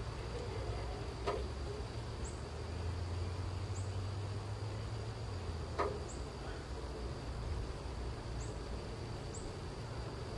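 Outdoor backyard ambience: a steady low rumble with short, high chirps every second or two, and two sharp clicks, about a second in and near the middle.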